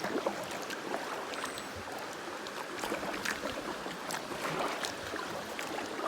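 River rapids rushing, a steady wash of water broken by many small, sharp splashes at irregular moments.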